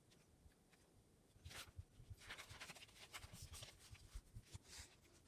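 Faint rustling and soft ticking of paper being handled, starting about one and a half seconds in.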